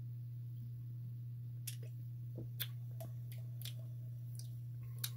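Sipping from a glass Ramune marble-stoppered soda bottle: about seven small sharp clicks from the second second onward, over a steady low hum.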